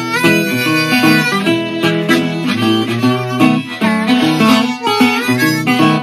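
Blues harmonica, cupped in the hands, playing held notes that bend upward near the start and again about four seconds in, over a metal-bodied resonator guitar picking a steady rhythm.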